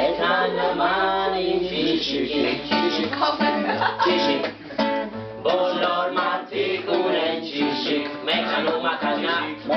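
A man singing while strumming and picking an acoustic guitar.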